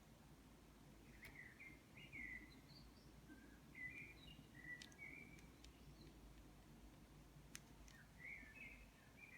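Faint, short, high chirps come scattered through, about a dozen of them in small clusters, with two or three sharp clicks among them, over a faint low hum.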